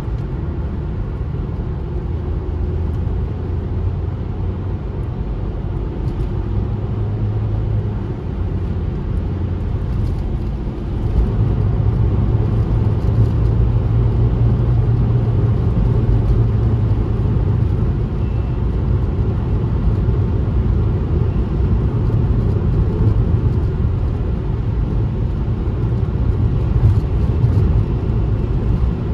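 A car driving at highway speed, with a steady low rumble of engine and tyre road noise that gets louder about eleven seconds in.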